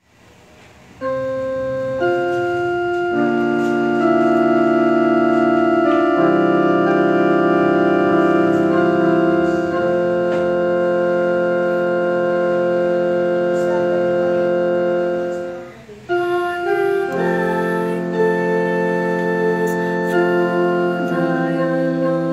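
Electronic keyboard played four-handed: sustained chords that hold steady without fading, changing every few seconds. The sound drops out briefly about 16 seconds in, then the chords resume.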